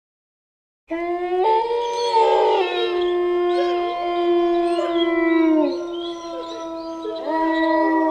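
Wolves howling in chorus: after a second of silence, several long, overlapping howls at different pitches, some sliding down in pitch as they end.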